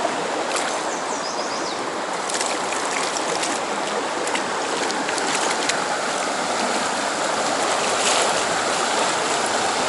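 Trout stream water rushing steadily, with a few brief sharp clicks between about two and six seconds in.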